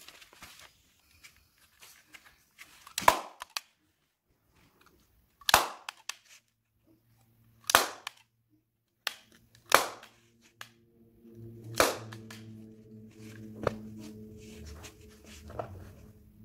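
Staple gun firing staples through fabric, five sharp snaps about two seconds apart, with a couple of quieter snaps near the end.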